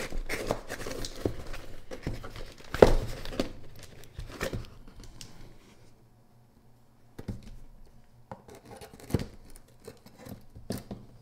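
Cardboard shipping box being opened by hand: flaps pulled back, with cardboard and packing tape rustling and scraping and a sharp knock about three seconds in. The second half is quieter, with only scattered light taps as the box is handled.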